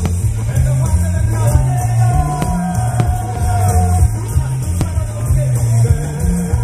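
Loud rock music with a heavy, pulsing bass beat, with a few sharp cracks cutting through it.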